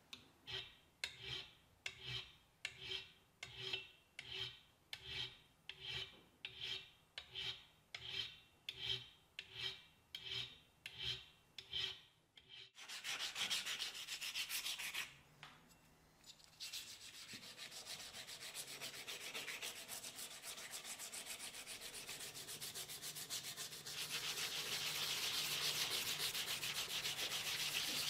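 Hand file worked in even strokes across a metal part clamped in a vise, a little under two strokes a second. Just before halfway it changes to wet sanding of small metal parts by hand, a continuous gritty rubbing that breaks off briefly and grows louder near the end.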